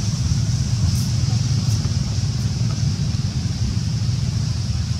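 Steady low outdoor rumble, with a steady high-pitched hiss above it and no clear animal calls.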